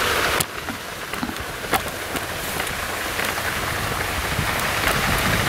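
Steady hiss of wind over rippling lake water, with wind rumbling on the microphone. A single sharp click comes a little under two seconds in.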